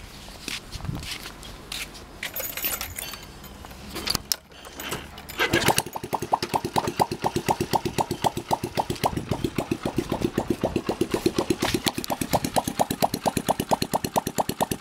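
Honda Super Cub 50's small four-stroke single starting with its muffler removed: a few seconds of knocks and clatter from the kick-start, then it catches about five seconds in. It then idles with an even putt-putt from the open exhaust, about ten pops a second.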